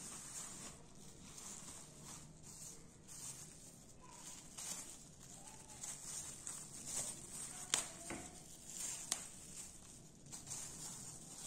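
Thin clear plastic bags crinkling and rustling as hands unfold and spread them out, the rustle swelling and fading with each movement. Two sharp clicks of the plastic come in the second half, about a second and a half apart.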